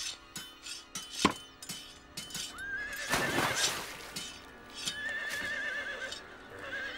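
Horse whinnying: a long wavering neigh about three seconds in, with more neighing later, over background music. A single sharp knock comes about a second in.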